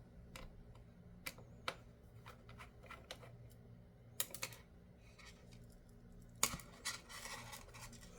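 Scattered light clicks and taps of small screws and a screwdriver being handled while a computer is taken apart, with a quick run of clicks about four seconds in and a short scraping rustle near the end.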